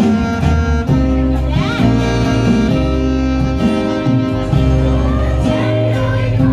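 Live instrumental introduction to a hymn: sustained chords over a steady bass, with a guitar among the instruments.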